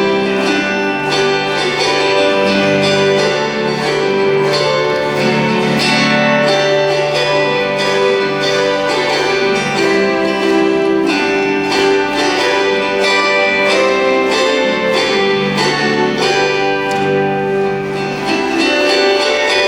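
An ensemble of autoharps strumming and plucking a hymn tune in chords.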